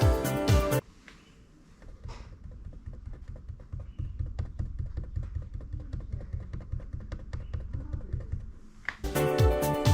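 Rapid, light clicking rattle over a low rumble, the cold-weather 'kacha-kacha' rattle of a Nissan X-Trail T32.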